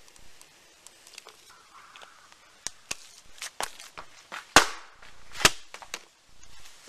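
A firecracker sealed in a half-filled plastic water bottle goes off with a bang about four and a half seconds in, followed by a second sharp crack about a second later. Scattered small ticks and crackles come before the bang.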